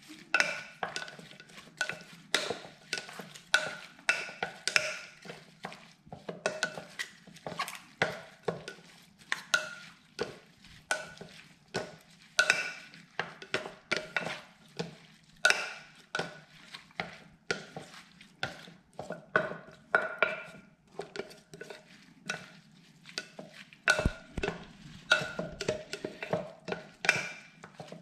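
A utensil stirring sauce in a bowl and knocking against the bowl about twice a second, each clink ringing briefly.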